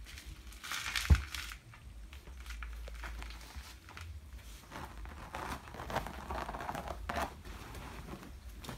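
A single thump about a second in, then intermittent rustling and crinkling of a waxed cotton cloth being handled.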